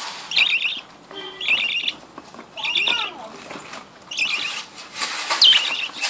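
Budgerigars chattering in a breeding colony: short warbling calls repeated about once a second.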